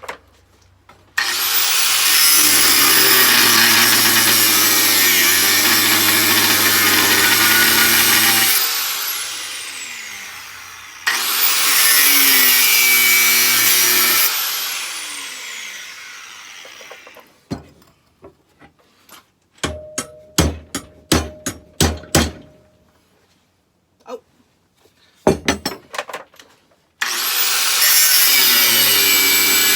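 Angle grinder cutting into steel in three long runs, each spinning down with a falling whine after the trigger is let go. Between the second and third cuts, a quick series of sharp metallic taps with a short ring.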